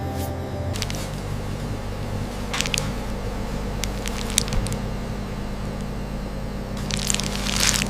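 Steady low hum of factory machinery, with a few short hissing bursts; the longest burst comes near the end.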